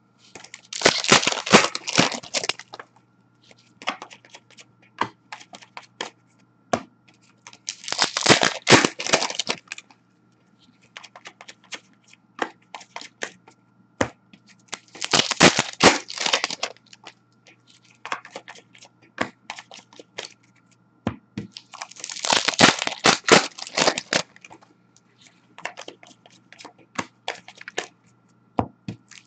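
Packs of 2019-20 Upper Deck Series 1 hockey cards being torn open, the wrappers tearing and crinkling in four bursts about seven seconds apart. Between the bursts come light clicks and taps as the cards are handled.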